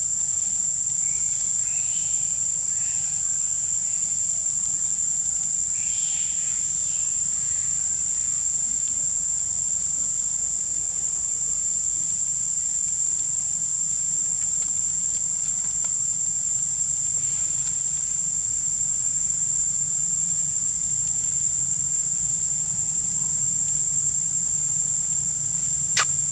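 Steady, high-pitched drone of insects, unbroken and even in level.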